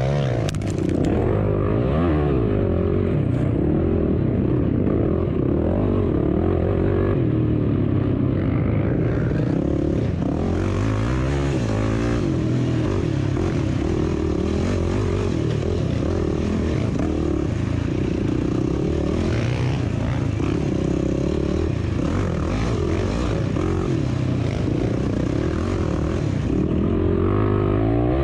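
Competition vehicle's engine running hard, its pitch repeatedly rising and falling as it revs and eases off, with a rush of wind or road noise that comes up about nine seconds in and drops away near the end.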